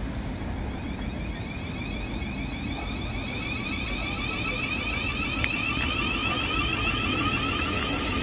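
Siemens Desiro City Class 707 electric train pulling away from the platform. Its traction motors give a whine in several tones that climbs in pitch as it accelerates, over a low rumble from the wheels. The sound grows louder toward the end as the train passes close.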